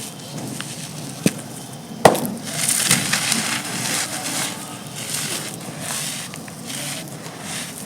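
Dry, gritty black sandment chunks being crushed and crumbled, a continuous crunching with two sharp snaps, a little over a second in and again at about two seconds, the second the loudest.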